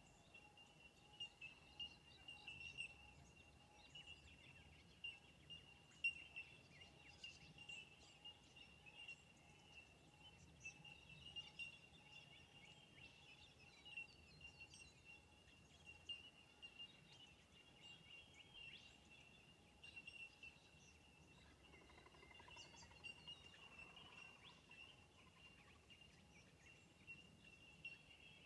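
Faint, quiet outdoor ambience: scattered short bird calls over a steady, thin high-pitched drone.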